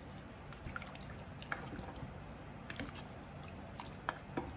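Water being poured into a cooking pot of chicken: a faint, steady splashing and trickling with a few small drips and ticks.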